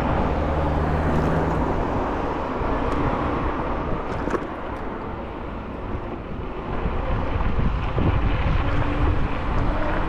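Wind rushing over the microphone of a moving scooter, with the steady rush of car traffic on the road alongside.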